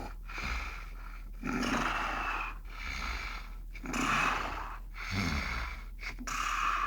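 A person snoring, a string of rough, rasping breaths coming about once a second.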